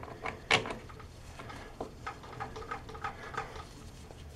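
Gloved hands handling metal parts at an ATV's rear axle end: one sharp click about half a second in, then a run of faint small ticks and clicks.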